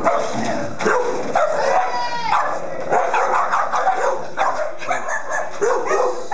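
Dogs barking and yipping over and over, about twice a second, with one longer, falling yelp about two seconds in.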